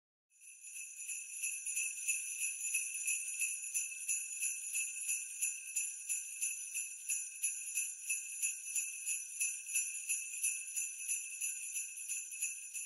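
Jingle bells shaken continuously in a quick, steady rhythm, their high metallic ringing fading in just after the start.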